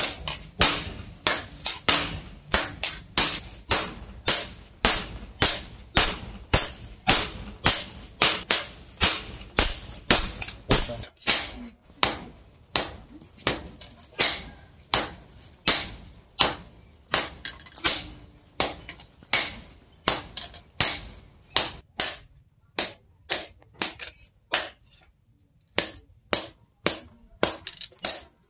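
Hand hammer forging a red-hot machete blade on a small steel post anvil: a steady run of sharp, ringing blows, about two to three a second, with a pause of a couple of seconds near the end. A low hum underneath stops about eleven seconds in.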